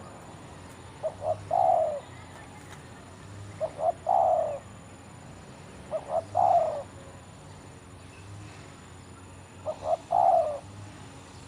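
Decoy spotted dove cooing its song four times, each phrase two short notes and then a longer rolling coo, repeated every few seconds.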